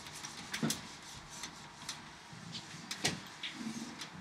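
Scattered light clicks and knocks, a few a second, over quiet room noise; the sharpest comes about three seconds in.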